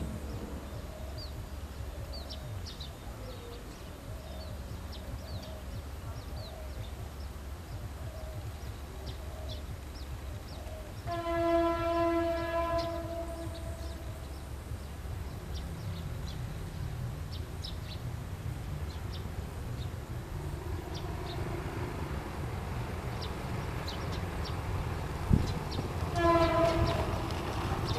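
Diesel locomotive horn sounding one long blast about 11 seconds in and a short one near the end, the train crew's greeting. Between them the locomotive's engine grows steadily louder as the train approaches.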